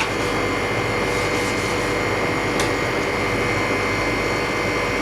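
LCD freezer machine's refrigeration unit running with a steady whirring hum and a constant high whine, with a light click about two and a half seconds in.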